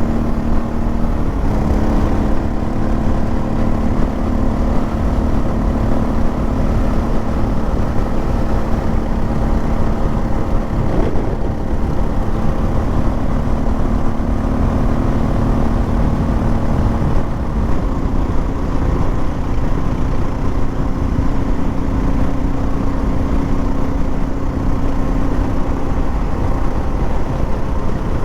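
Motorcycle engine running steadily at highway speed, with heavy wind rush on the microphone. The engine pitch steps up slightly a couple of seconds in and again about two-thirds of the way through.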